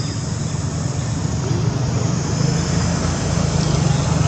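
Steady low rumble with a faint hiss above it, like traffic or a running engine.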